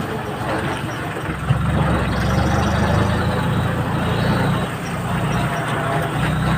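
Tractor engine running steadily, its low drone growing louder about a second and a half in.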